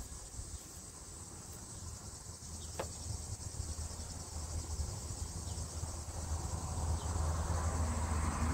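Steady high-pitched insect chorus from the surrounding trees. A single light knock comes about three seconds in, and a low rumble grows louder towards the end.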